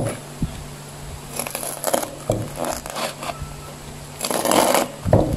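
Knife crunching through boiled-then-deep-fried pork belly with a crisp crust, on a cutting board: several bursts of crackling as the blade breaks the crust, with a dull knock of the knife on the board near the end.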